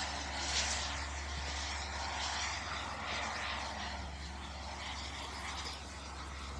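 Kingtech K-260 turbine of a large RC Havoc jet flying past, a steady rushing whoosh, easing off slightly near the end.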